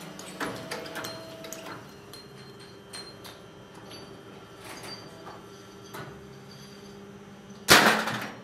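Die-casting machine humming steadily, with scattered metallic clicks and clanks of tongs and cast brake-shoe frames, and one loud metal clang near the end.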